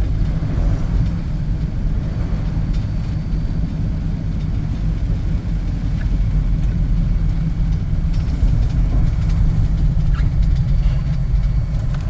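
Car running along the road, heard from inside the cabin: a steady low engine and road rumble.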